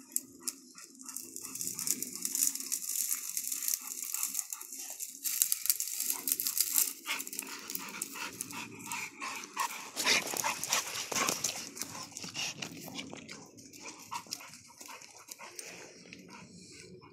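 Two mastiff-type dogs play-fighting, with dog vocalizing mixed with dense scuffling of paws in dirt and dry brush. The scuffling dies down near the end.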